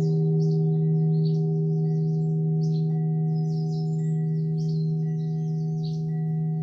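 A gong ringing on in a long, sustained hum after being struck, with several steady tones slowly fading. Short high chirps sound over it throughout.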